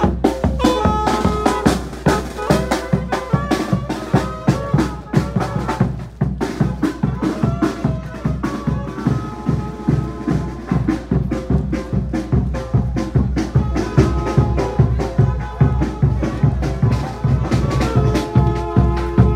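Tamborazo band playing: a bass drum (tambora) and snare drum keep a steady marching beat under saxophones and brass.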